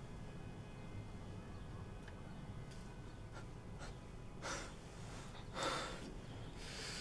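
Low room tone with a faint steady hum; a person breathes heavily twice, about four and a half and six seconds in.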